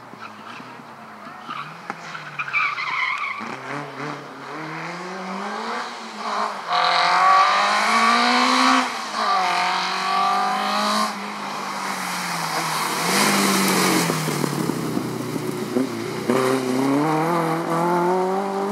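Peugeot 205 rally car engine revving hard through the gears, its pitch climbing and dropping again and again with the shifts and lifts. It is loudest near the middle as the car passes close.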